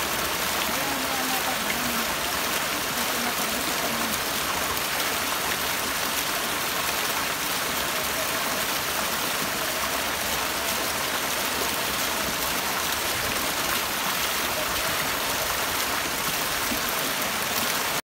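Fountain water splashing steadily into a stone basin and spilling over its rim, a constant rushing hiss.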